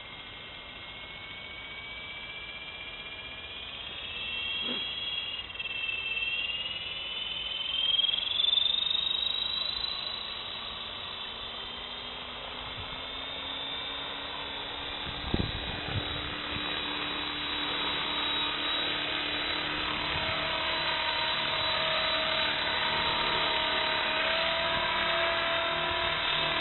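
Electric radio-controlled helicopter spooling up: a rising electric-motor whine as the rotor gathers speed, settling into a steady whir of rotor and gears that holds as it lifts off and flies. A single knock about halfway.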